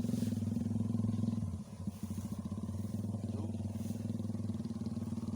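A small engine running steadily with an even low drone, dipping briefly about a second and a half in before carrying on.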